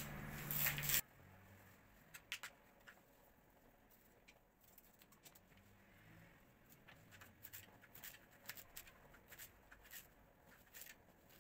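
Kitchen knife cutting through bunched mallow stalks on a cutting board: faint, irregular crisp snips and light taps. A louder stretch with a low hum cuts off abruptly about a second in.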